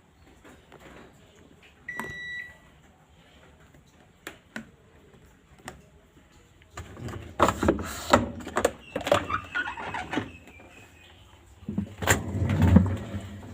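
A single short electronic beep about two seconds in, then irregular clattering and knocking from about seven seconds on, loudest near the end.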